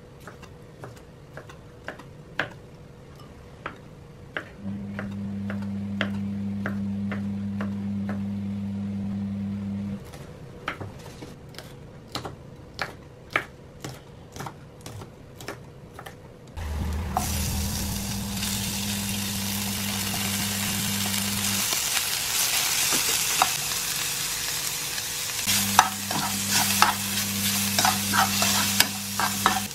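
Kitchen knife tapping rapidly on a wooden cutting board, chopping chillies and garlic. About halfway through, food goes into a hot oiled frying pan and sizzles steadily, with a spoon scraping and clinking in the pan near the end. A low steady hum starts and stops three times.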